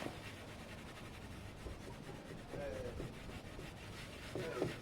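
Cloth rubbing polish by hand on a scooter's plastic front panel, a faint uneven scrubbing sound.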